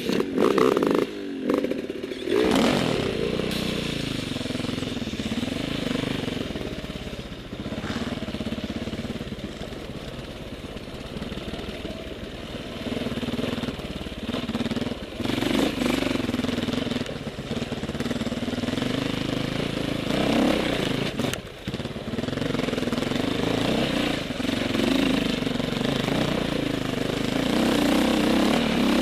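Dirt bike engine ridden along a rough trail, revving up and down with the throttle. The engine starts loud about half a second in and briefly drops off about three-quarters of the way through.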